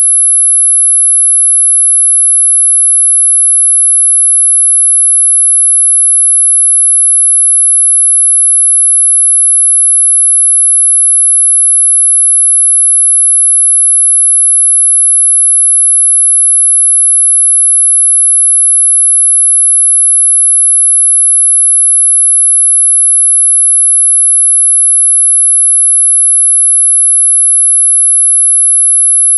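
A single pure sine tone at 11 kHz, loud and perfectly steady, with no other sound. It is a synthetic tinnitus-masking tone meant to cover high-pitched ringing in the ears.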